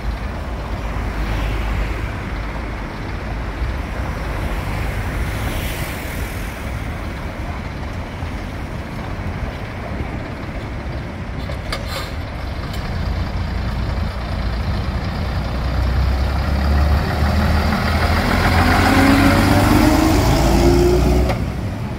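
Vintage London bus engine running with a steady low rumble, then pulling harder with a rising pitch over the last few seconds before easing off sharply near the end.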